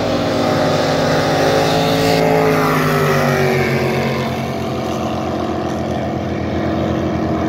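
Racing jet boat's engine at full throttle, a loud, steady high note that sags slightly about three seconds in as the boat runs away down the river.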